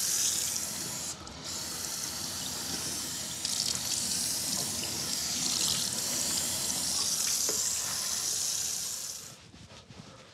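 Running water, a steady hiss of water pouring from a tap or shower head, with a brief break about a second in; it shuts off about a second before the end.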